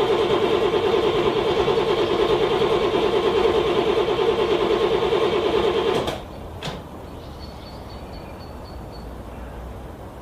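A car's starter cranking a cold engine with a fast, even pulsing that does not catch, then stopping abruptly about six seconds in, followed by a single click.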